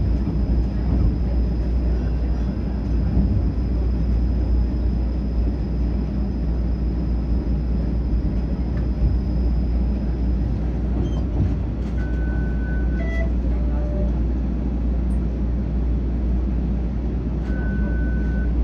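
TTC streetcar running, heard from inside the car: a steady low rumble of motors and wheels on the rails. A faint high whine stops about halfway through, and a few short electronic tones sound in the last seconds.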